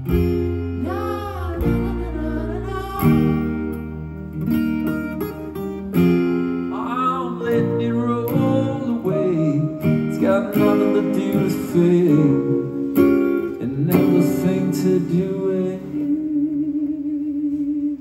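Live band music: strummed acoustic guitar and electric guitar with a sung vocal line over them.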